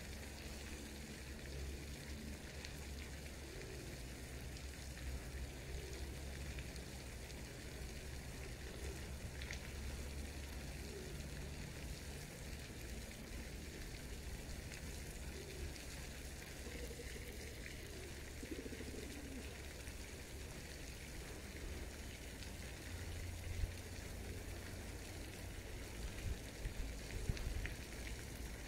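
Steady splashing of a fountain's water, with a low rumble underneath and a few sharp clicks near the end.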